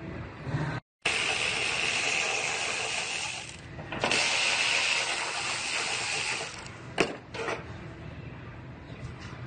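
Handheld power tool working the sheet metal of a car body, run in two long bursts of a few seconds each, with a steady high whine over a hiss. A sharp click comes about seven seconds in.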